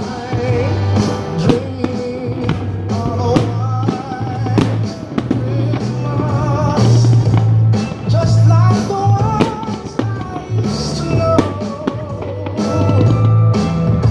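Christmas music from the fireworks show's soundtrack, with a steady drum beat and a wavering melody line over it.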